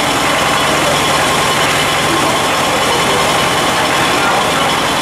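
Vintage tractor engine running steadily while belt-driven threshing machinery clatters and rattles alongside it.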